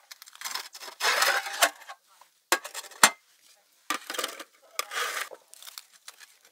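Camp cookware being handled on a slatted folding table: a metal pan and its lid lifted and set down, a round cutting board and a knife laid out, with scraping and clattering and two sharp clinks about halfway through.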